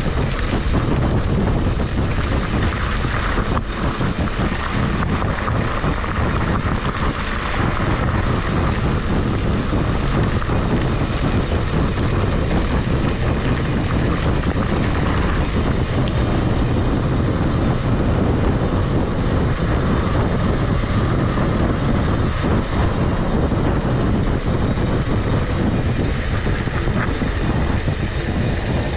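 Steady rush of wind buffeting the microphone, mixed with tyre and road noise from a mountain bike being ridden.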